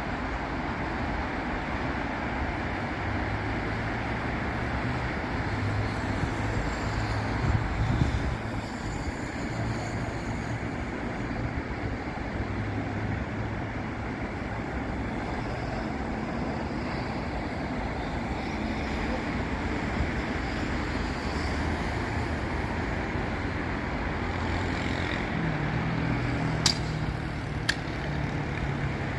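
Continuous road traffic on a busy city avenue: cars and buses passing, a steady wash of tyre noise with engine hum swelling and fading as vehicles go by. Two short sharp clicks come near the end.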